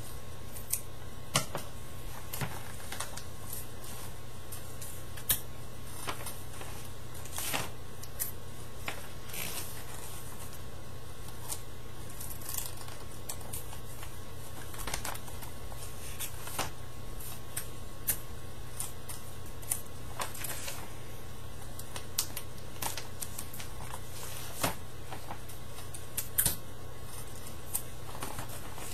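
Paper being handled and worked by hand: scattered, irregular crinkles and taps, over a steady low hum.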